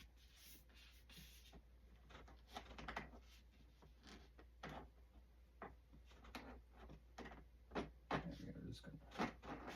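Faint, scattered clicks and taps of hands working small plastic parts: a servo being nudged into place in a foam model airframe.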